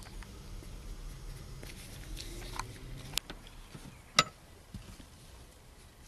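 Handling noises around a car seat: a few light clicks and knocks over a low steady hum, the sharpest click about four seconds in.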